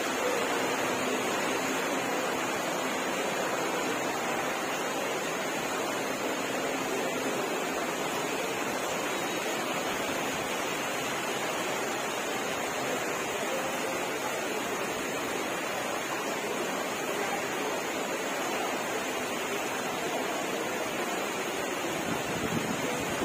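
Steady, unbroken rushing of water as floodwater covers a railway station platform.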